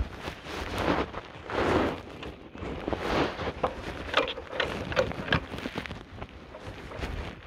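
Handling noise from a handheld camera being moved about: irregular rustling and scattered knocks as its microphone brushes against clothing.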